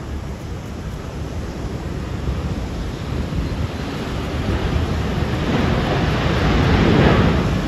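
FedEx Boeing 777 freighter's twin GE90 jet engines roaring as it passes, the noise swelling and peaking near the end.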